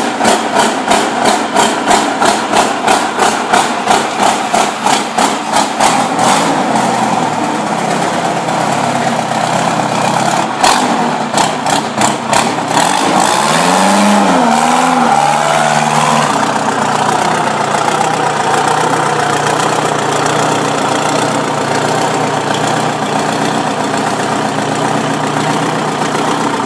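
Big engine of a homemade motorcycle, running through short open exhaust stacks with an uneven, loping beat of about three sharp pulses a second at first, then settling to steadier running. About halfway through it is revved, rising and falling in pitch, and then runs steadily.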